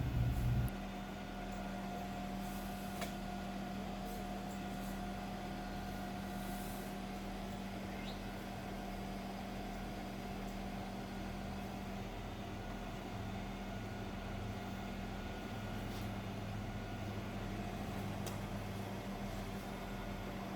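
A large engine running steadily at a constant speed, a low, even hum with no revving.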